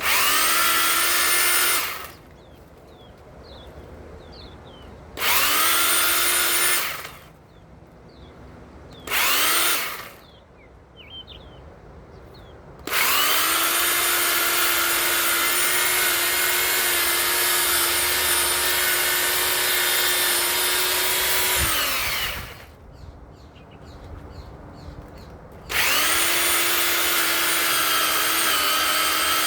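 1000 W rear-motor electric pole saw run in five bursts: each time the motor spins up with a rising whine and holds a steady pitch, the longest run lasting about nine seconds before it winds down with a falling pitch. There are short pauses between the runs.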